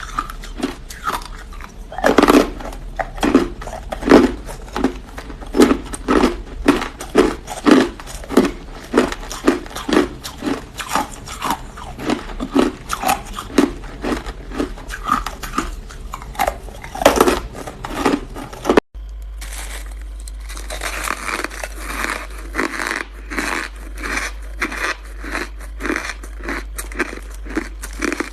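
Close-miked chewing of hard ice, a sharp crunch about twice a second. After an abrupt cut about two-thirds through, the chewing goes on as finer, quicker crackling.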